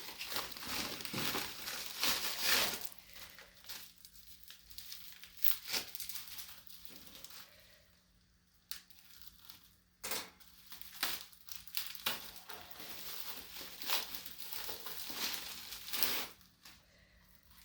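Packaging being unwrapped by hand: irregular crinkling and tearing with scattered small clicks and knocks, busiest in the first few seconds and again in the second half.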